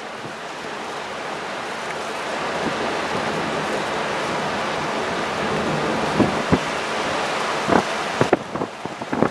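Steady rushing of wind and sea heard from the deck of a ship under way, slowly growing louder, with a few faint knocks in the last few seconds.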